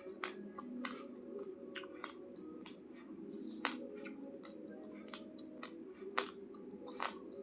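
Raw, uncooked basmati rice being chewed: sharp little crunches of grains cracking between the teeth, irregular at about two a second, over a steady low hum.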